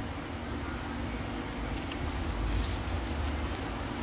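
Scrapbooking paper handled and turned over by hand, with a short rustle of paper about two and a half seconds in, over a steady low background rumble.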